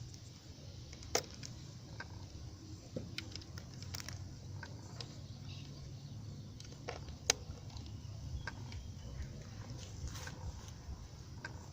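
Shortwave radio receiver playing a gap in the broadcast: a low hum and faint hiss with scattered sharp clicks and crackles, the sharpest about a second in and about seven seconds in.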